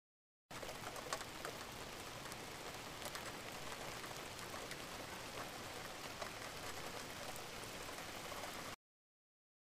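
Heavy rain pouring down, heard faintly as an even wash of noise with scattered sharp ticks of drops. It cuts in about half a second in and stops abruptly about a second before the end.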